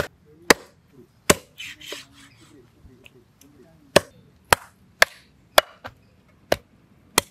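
Heavy cleaver chopping raw chicken on a round wooden chopping block. About nine sharp chops: three quick ones, a pause of a couple of seconds, then six more at an uneven pace.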